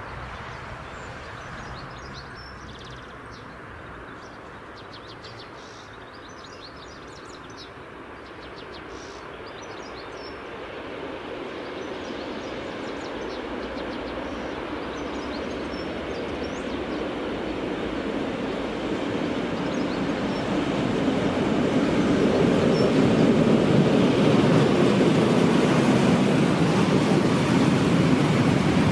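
A train approaching, its rumble of wheels and engine growing steadily louder over about fifteen seconds and then holding close and loud. Faint high chirps are heard in the quieter first part.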